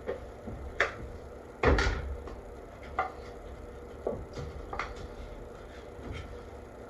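A handful of scattered knocks and taps from containers and tools being handled on a work surface, the loudest about two seconds in.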